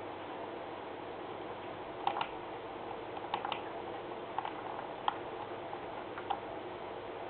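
Sharp clicks from the computer's controls over a steady hiss. There is a quick pair about two seconds in and another a second later, then three single clicks about a second apart, as the slides are moved on.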